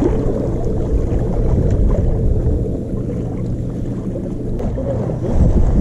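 A loud, steady low rumble, with faint clicks and rustles from gloved hands rigging a lure on a fishing rod.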